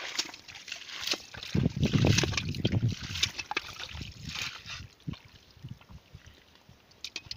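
Splashing and sloshing in shallow muddy water, a busy run of wet slaps and squelches, loudest from about one and a half to three seconds in, then thinning to scattered small splashes.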